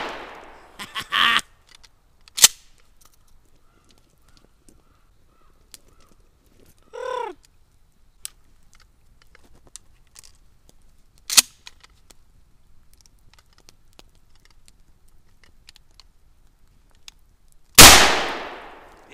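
A gun fired straight up into the air: one loud shot near the end that rings out and fades over about a second, with the fading tail of an earlier shot at the very start. In between come a few sharp clicks from the gun being handled, and a short crow-like call about seven seconds in.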